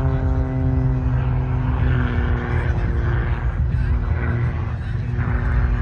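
Single aerobatic display aircraft trailing smoke flies past low; its engine tone slides down in pitch over the first couple of seconds as it passes, then holds fainter and steady over a strong low rumble.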